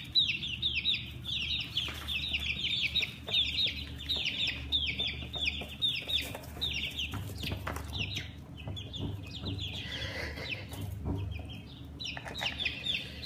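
A flock of chicks peeping continuously, many quick high chirps that slide down in pitch, briefly thinning out about ten seconds in.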